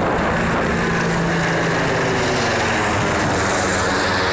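Apache attack helicopter flying close overhead: a steady, loud noise of rotor and turbines, with a low hum that fades about halfway through.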